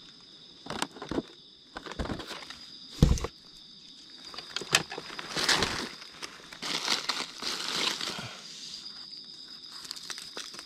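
Footsteps and rustling through forest leaf litter: irregular crunches, a thump about three seconds in, and a longer stretch of rustling past the middle. A steady high insect drone holds underneath.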